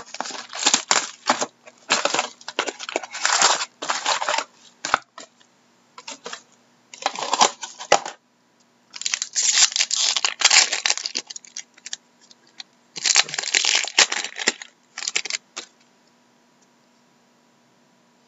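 Upper Deck Artifacts hockey card box and foil pack wrappers being torn open by hand: repeated bursts of tearing and crinkling that stop about three seconds before the end.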